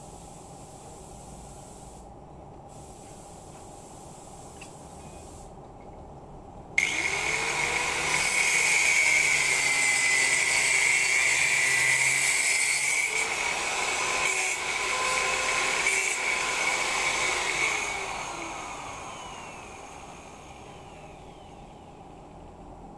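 Angle grinder working steel: about a quarter of the way in it starts with a sudden whine that rises as the disc spins up, runs steadily against the metal, then is switched off and winds down near the end.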